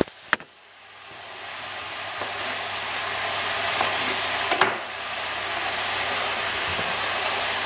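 Food frying in a pan: a steady sizzling hiss that fades in over the first couple of seconds. A few sharp knife taps on a wooden cutting board come around the middle.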